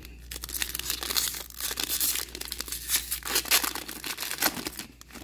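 Foil wrapper of a Panini Prizm football trading-card pack torn open by hand and crinkled, a dense irregular crackle that stops shortly before the end.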